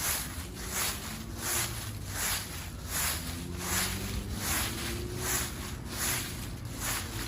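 Footsteps walking through fallen leaves at a steady pace, about ten steps, each one a short rustling crackle.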